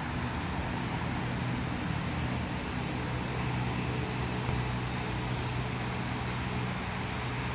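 Ford Fiesta ST's 1.6-litre turbocharged four-cylinder engine idling with a steady low hum, over an even rushing background noise.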